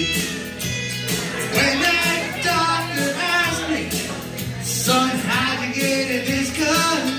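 A man sings a country-rock song into a microphone over an accompaniment with a bass line and a steady beat, amplified through a PA system.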